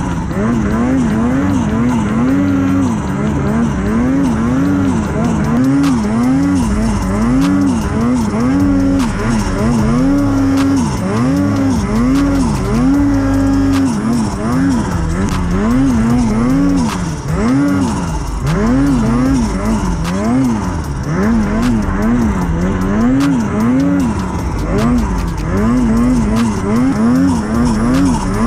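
Two-stroke snowmobile engine revving up and down over and over, about once a second, as the sled is worked through deep powder.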